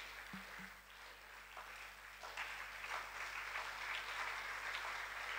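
A church congregation clapping their hands in applause, faint at first and building up about a second in before holding steady.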